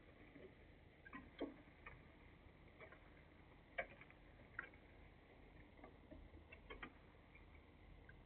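Near silence: about a dozen faint, irregularly spaced clicks and ticks over a low background hum, with a faint steady high tone running underneath.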